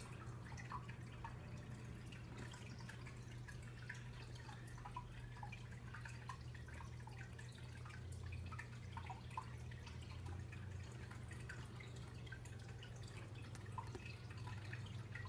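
Faint steady low hum, with scattered soft ticks throughout.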